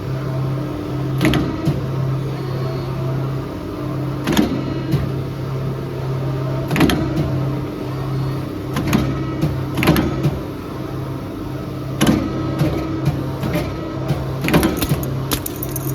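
Automatic CNC tube bender running through its cycles on small-diameter tubes: a steady motor hum that drops out briefly now and then, with sharp clanks and clicks every one to three seconds.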